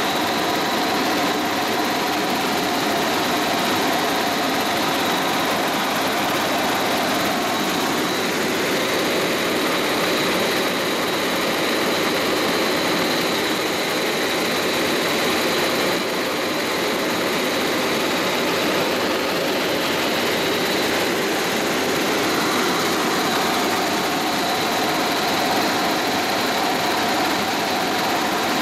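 Helicopter engine and rotor running steadily in flight, heard from inside the cockpit, with a steady high whine on top of the noise.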